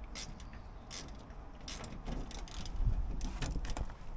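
Scattered clicks and light knocks of hand work on the excavator's metal parts, with a short low rumble about three seconds in.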